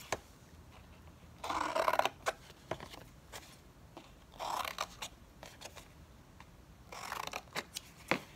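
Scissors cutting slits into thin cereal-box cardboard: three short bursts of cutting, each under a second, a few seconds apart.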